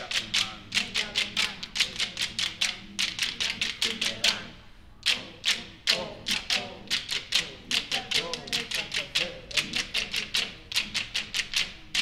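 A choir performing rhythmic percussive taps, about four or five a second in phrases broken by short pauses, over low sustained voices.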